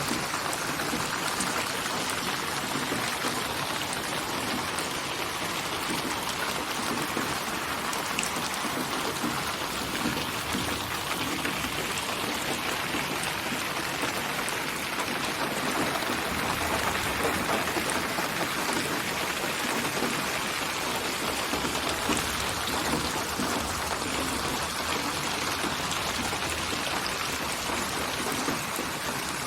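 Steady rain falling, a dense even patter of drops with scattered individual drop ticks.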